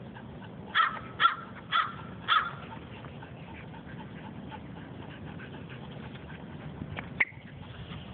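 A small dog yapping four times in quick succession, about half a second apart, followed by a single sharp click about seven seconds in.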